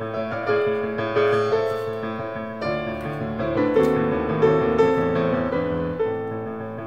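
Background piano music: a melody of separate notes, some held and overlapping.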